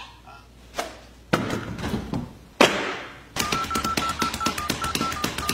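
A few dull thumps, then a telephone being dialed: a rapid, even run of clicks, about ten a second, with short repeated beeps at one pitch, starting about three and a half seconds in.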